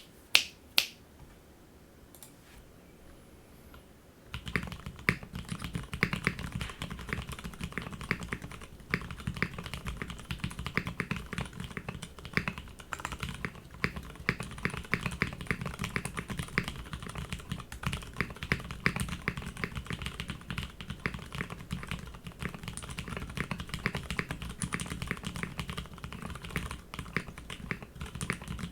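Two sharp clicks, then after a few seconds of near quiet, steady fast typing on a custom mechanical keyboard: lubed and filmed Cherry MX Hyperglide Brown tactile switches in a top-mount case with a full aluminium plate and NK Cherry Copper keycaps, the keystrokes a dense run of muted clacks.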